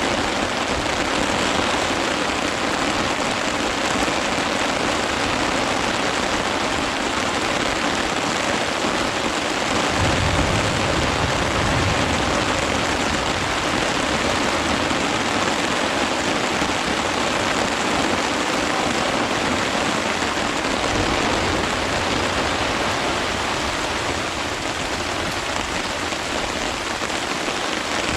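Steady, fairly loud rain falling, with a brief low rumble about ten seconds in.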